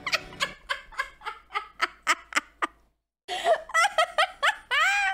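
A woman laughing hard: a quick run of breathy laughs, about four a second, that dies away. After a short gap come higher-pitched, squealing laughs.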